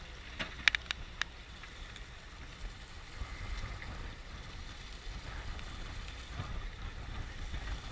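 Steady low rumble aboard a fishing boat at sea, with a quick run of four sharp knocks about a second in.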